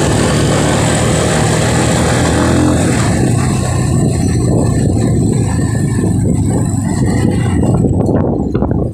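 Motorcycle engine running as the bike rides along a road, loud and steady, with a dense rushing noise over it. The sound dips briefly near the end.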